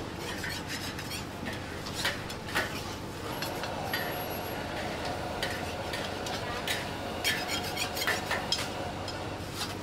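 Metal spatula scraping and clinking against small cast-iron pancake pans, in irregular strokes over a steady background noise.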